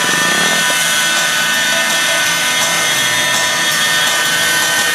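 Radio-controlled model helicopter flying low and fast, its small engine and rotors running at high revs with a steady, high-pitched whine.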